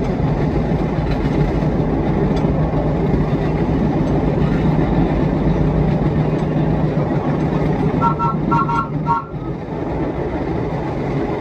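NYC subway train running: a steady rumble with a low hum. About eight seconds in come three short, evenly spaced high beeps, after which the hum drops away.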